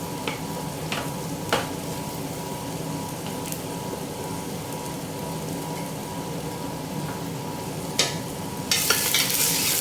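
Chopped vegetables, green beans among them, sizzling in hot vegetable oil in a pan as they are stirred, with a few sharp clicks of the spoon against the pan. Near the end the sizzle suddenly grows louder and brighter.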